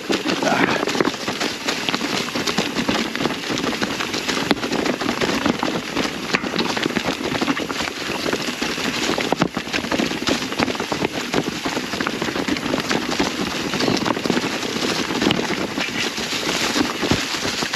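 Mountain bike tyres rolling fast over a rocky trail covered in dry fallen leaves: a continuous crunching rustle, broken by frequent sharp clicks and knocks.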